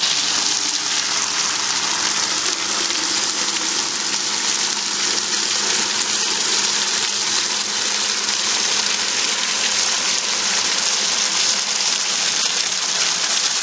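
Three streams of flood coolant from Loc-Line nozzles pouring and splashing into a plastic bucket: a loud, steady hissing gush that comes on abruptly and then holds even, with a faint steady hum underneath.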